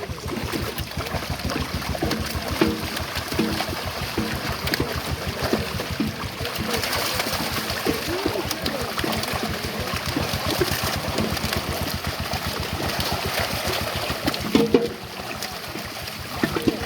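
Water splashing and churning over the steady chugging of a small engine, with faint voices under it.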